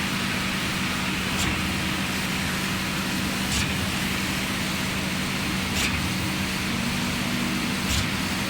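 DY 57 truck-mounted concrete boom pump running steadily, with four sharp knocks about two seconds apart, the regular changeover of its pumping cylinders.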